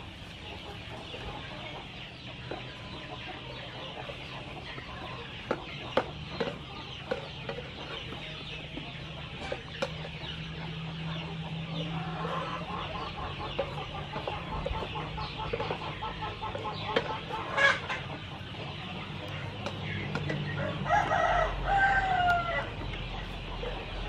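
Chickens clucking, with a rooster crowing near the end, over a steady sizzle of okra stir-frying in a wok and occasional sharp knocks of a spatula against the pan.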